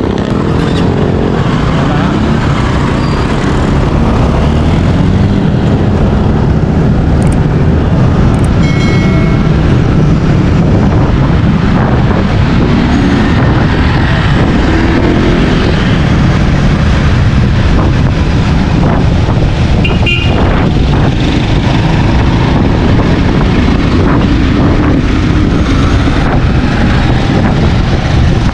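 Loud steady wind and road rumble on a bicycle's handlebar-mounted action camera while riding through town traffic, with motorcycles and tricycles running close by. A short higher-pitched tone sounds about nine seconds in.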